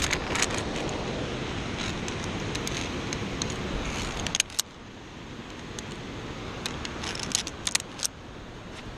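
Via ferrata carabiners clinking and scraping against the steel safety cable in several short runs of sharp metallic clicks, over steady wind noise on the microphone that drops off about four and a half seconds in.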